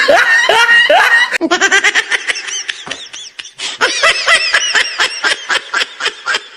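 People laughing hard in quick repeated bursts. About a second and a half in, the sound cuts abruptly to another stretch of laughter.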